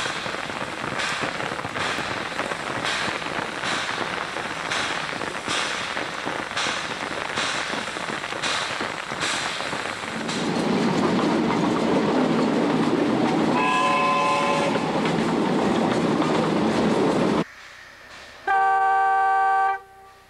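Narrow-gauge steam locomotive exhausting in steady chuffs, about one every 0.7 s, followed by a louder steady rush of noise with a brief whistle in the middle. After a sudden cut, a railway horn sounds for about a second near the end.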